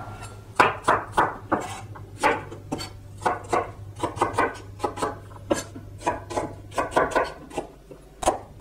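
Chef's knife chopping garlic cloves and onion on a wooden cutting board: a run of knife strikes on the board, about two or three a second, unevenly spaced.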